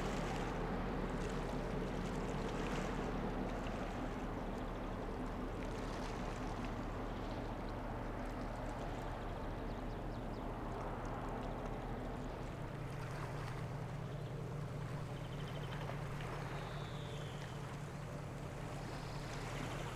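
Passing oil/chemical tanker's engine humming steadily, with water rushing along the hull and splashing from a discharge outlet in its side. A deeper hum grows stronger a little past halfway.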